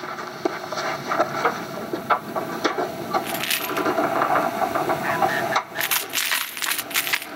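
Animated-film sound effects: a run of small clicks, taps and rattles, with bursts of rustling noise about halfway through and again near the end.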